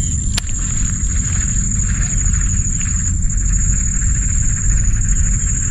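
Insects keep up a steady high-pitched drone. Under it runs a loud low rumble, and a single sharp click comes about half a second in.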